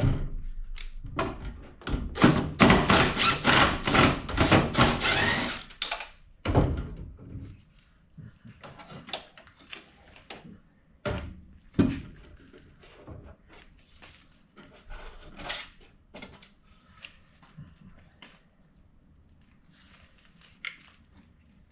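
Hand work on a car's front wiring harness: a few seconds of busy clattering and scraping near the start, then scattered clicks and knocks as connectors, clips and tools are handled.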